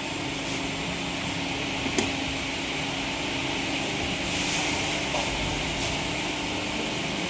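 Steady mechanical hum and hiss of running equipment, like an air-conditioning or fan unit, with one sharp click about two seconds in and a brief swell of hiss a little past the middle.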